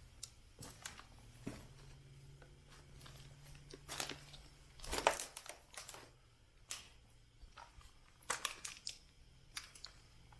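Footsteps crunching and crackling over fallen ceiling debris, an irregular run of crunches with the loudest cluster about halfway through.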